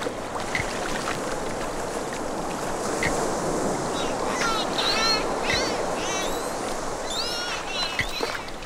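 Recorded ocean surf washing steadily. About four seconds in, a string of squeaky, wavering whistle calls begins, repeating several times.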